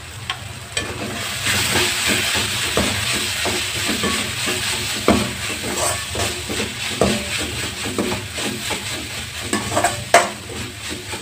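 Vegetables and spices sizzling in oil in a metal kadai while a metal ladle stirs them, scraping and knocking against the pan many times, with one louder knock about ten seconds in.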